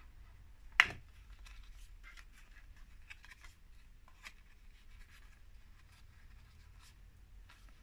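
Paper rustling with small scattered crinkles and clicks as a glued sheet of patterned paper is folded and pressed together by hand, after one sharp tap about a second in.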